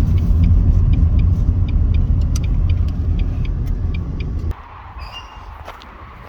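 A loud, steady low rumble with faint regular ticking above it, cutting off suddenly about four and a half seconds in.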